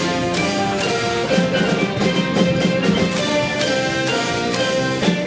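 Live band playing an upbeat instrumental break with a steady drum-kit beat and pitched melodic notes, and no singing.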